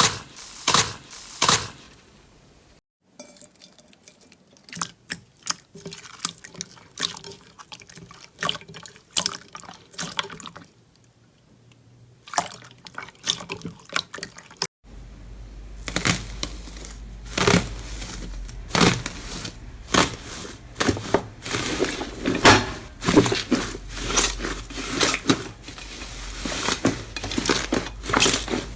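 Slime being squeezed and poked by hand, making a run of wet, sticky clicks and pops that come thicker and louder from about halfway through.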